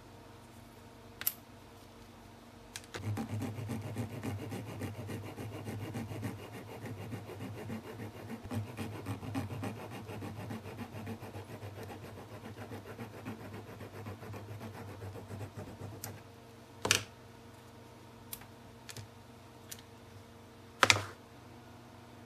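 Hobby blade sawing and scraping a small white plastic piece, a rapid rasping of quick back-and-forth strokes that starts about three seconds in and stops about sixteen seconds in. A few light clicks follow, with two sharper knocks near the end.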